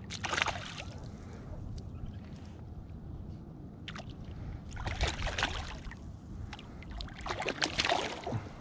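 Irregular splashing and sloshing at the surface beside a kayak as a hooked tailor is brought alongside, in a few short bursts near the start, the middle and the end, over a steady low rumble.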